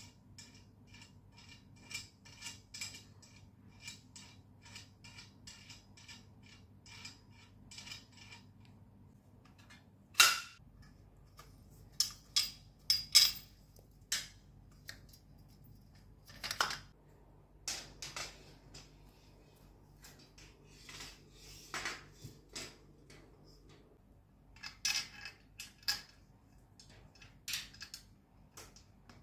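White metal rack being assembled by hand: a quick run of small ticks as a round end piece is screwed into a square tube, then sharp clicks and knocks as the tube sections are pushed together and the mesh panel is fitted.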